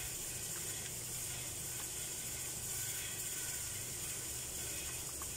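Wet squishing and plastic-glove rustling as a gloved hand mixes and kneads fish chunks in a thick spice marinade in a ceramic bowl, with a few faint ticks over a steady low hum.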